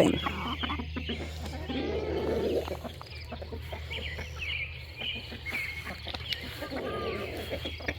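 Chickens clucking softly while foraging, with brief calls, scattered light ticks and rustles, and a steady low hum underneath.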